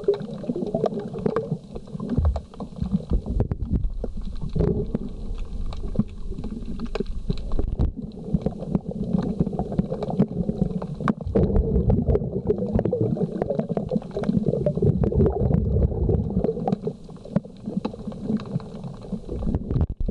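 Low, muffled rumbling of water moving around an underwater camera, with many scattered sharp clicks.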